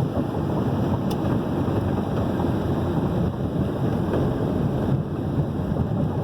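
Steady rumble of wind buffeting the microphone mixed with road and traffic noise from a vehicle moving fast along a flyover.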